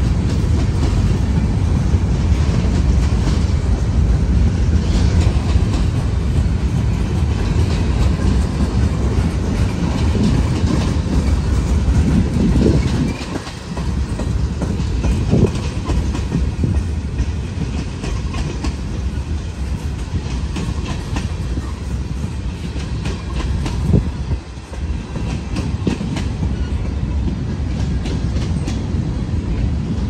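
Freight train cars (covered hoppers and tank cars) rolling past close by: a steady low rumble of steel wheels on rail with clickety-clack over the joints. It dips briefly twice along the way.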